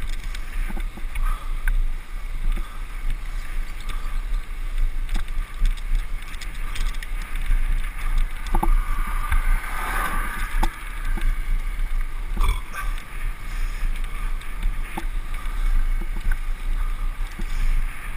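Wind rumble on the microphone of a bicycle-mounted action camera while riding along a lane, with a steady hiss of tyre and road noise. A few small clicks and knocks from bumps are scattered through it.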